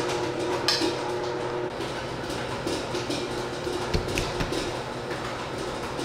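Clinks and knocks of cups and utensils being handled over a steady background hum, with a sharp clink under a second in and a dull thump followed by another clink about two-thirds of the way through.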